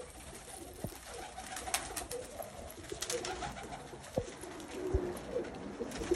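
A flock of domestic pigeons cooing in low, warbling bursts while pecking at mixed grain, with many sharp clicks and taps of beaks on seed and a few soft thumps.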